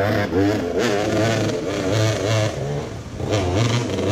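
Dirt bike engines running and revving, the pitch wavering up and down with the throttle over a steady low idle.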